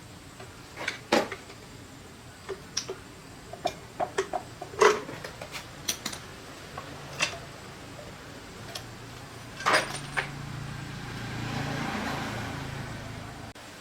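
Scattered sharp clicks and knocks, like hand tools and small metal parts being handled and set down, then a soft hiss with a low hum that swells and fades near the end.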